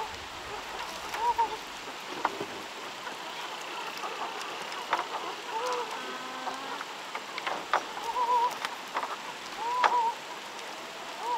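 Chickens giving short arching clucks, about half a dozen spread through, over a steady rushing hiss, with scattered sharp clicks.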